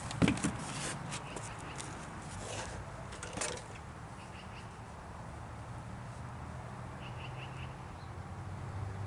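A few sharp clicks and knocks right at the start and again about three and a half seconds in, over a low steady hum. Faint short bird chirps come a few times in the second half.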